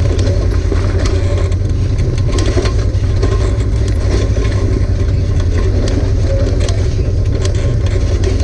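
Off-road vehicle engine running steadily as it drives up a rutted dirt trail, with scattered knocks and rattles over the bumps.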